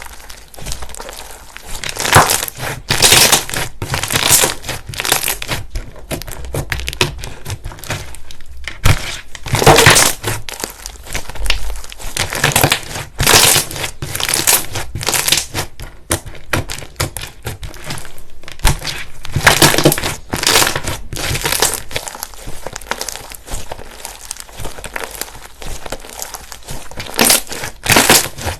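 Slime being squeezed, pressed and poked by hand, making close-miked, irregular bursts of crackly, crunching noise several times a second.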